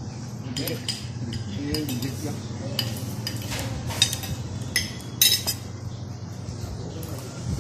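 Spoons and forks clinking and scraping on ceramic plates and bowls while people eat: a scatter of short sharp clinks, the loudest about four and five seconds in, over a steady low hum and faint voices.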